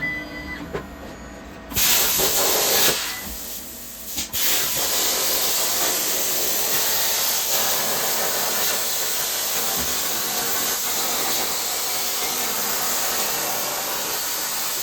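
Plasma torch on a CNC plasma table cutting a sheet-steel patch: a loud, steady hiss. It starts about two seconds in, drops away briefly about three seconds in, then comes back and runs on evenly.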